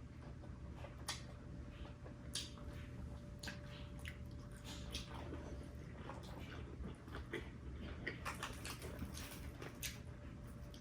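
Eating sounds: chewing and mouth smacks with scattered small clicks, busier for a couple of seconds near the end.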